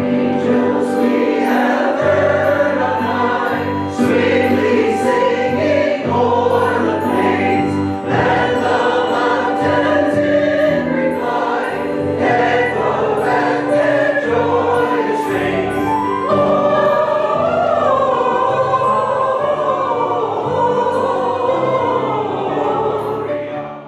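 Church choir singing part of a Christmas cantata, with instrumental accompaniment holding sustained low notes beneath the voices.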